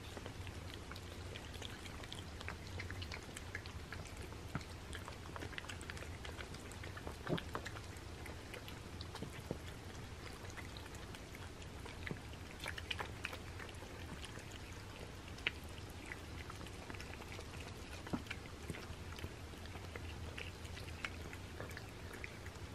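Several cats eating moistened wet cat food from paper plates: faint, scattered wet chewing and licking clicks throughout, over a low steady hum.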